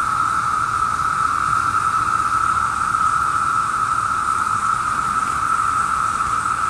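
Chorus of Brood II periodical cicadas (Magicicada): a dense, continuous drone held at one steady pitch, with no breaks.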